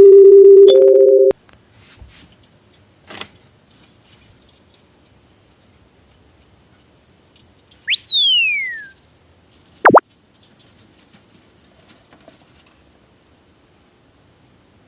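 Electronic sound effects. A loud steady beep tone that steps up in pitch cuts off about a second in. A falling whistle-like 'pew' sweep comes about eight seconds in, and a quick downward zip about ten seconds in. Faint light rustling sounds fill the gaps.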